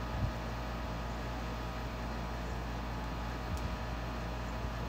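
Steady background hum and hiss, with a couple of faint soft knocks as small greasy metal parts are handled.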